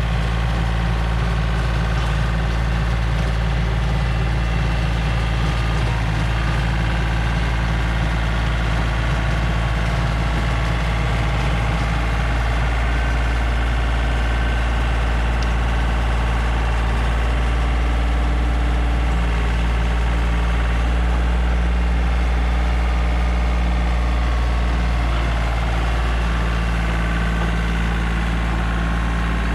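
Yanmar compact diesel tractor engine running steadily, its low note shifting a few times as it works.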